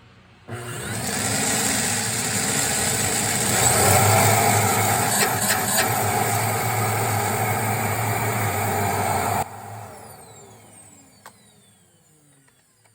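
AEG-Electrolux ZCX6422 CycloneXL vacuum cleaner switched on, its motor spinning up and running loud and steady for about nine seconds, then switched off, the motor's whine falling away as it spins down.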